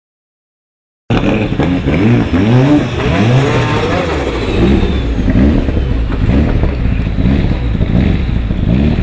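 Turbocharged four-cylinder engine of a 650 hp Mitsubishi Eclipse GSX hill-climb race car, revved up and down in repeated blips about once a second. It cuts in suddenly about a second in.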